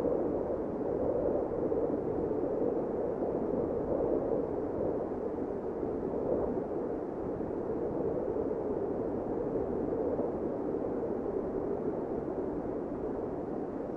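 Steady, rushing noise drone with no tune or pitch, a dark ambient sound-design bed for a film.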